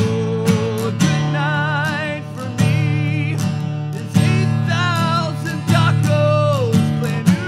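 A song: strummed acoustic guitar with a voice singing long held notes with a wide vibrato.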